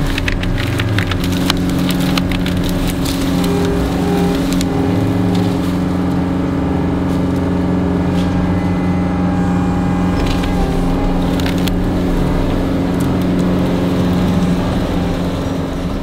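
John Deere 333G compact track loader's diesel engine running steadily under load, with branches and brush cracking and snapping as its debris grapple pushes through fallen timber. The cracks come thickest at the start and again about ten seconds in.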